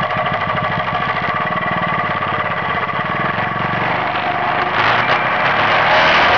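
Suzuki LT185 quad's single-cylinder four-stroke engine running with an even, rapid beat, then revving up and getting louder about five seconds in as the quad accelerates.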